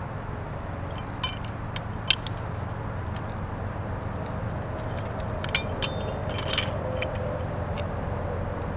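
A few scattered light metal clinks and scrapes from handling the tack-welded mild steel pipe pieces to straighten out their warping, over a steady low hum.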